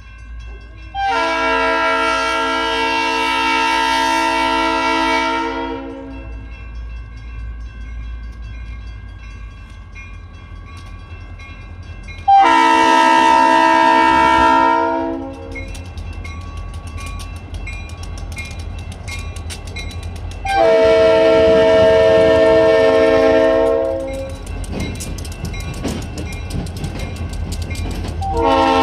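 Diesel locomotive air horn blowing the grade-crossing signal: three long blasts of a multi-note chord, each three to four and a half seconds long, with a short blast starting right at the end. Underneath, the locomotives' diesel engines rumble louder as they reach and roll through the crossing near the end.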